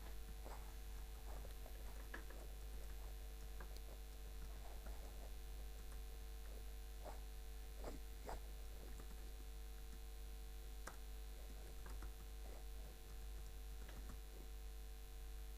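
A steady low electrical mains hum, with faint, irregular clicks of computer keyboard keys being typed scattered through it.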